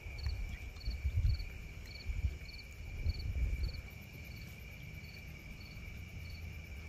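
Crickets chirping at dusk: one steady high trill runs throughout, and another insect chirps about twice a second. Low rumbling bumps in the first few seconds come from the camera being handled and moved.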